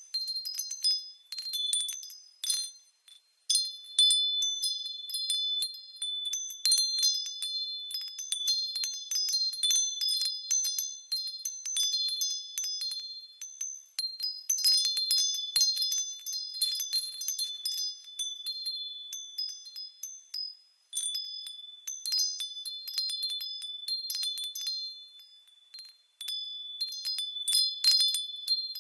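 Wind chimes ringing: crisp, high tones struck in irregular clusters that overlap and ring on, with a few brief lulls.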